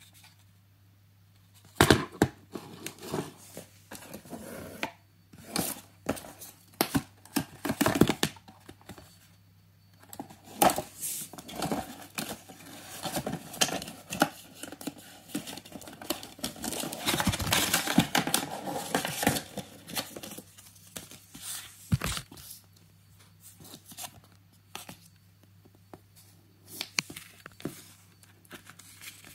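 Rustling and crinkling of paper being handled, a folded safety leaflet and packaging from a new mouse's box, with scattered sharp taps and clicks. The handling is busiest in the middle and thins out toward the end.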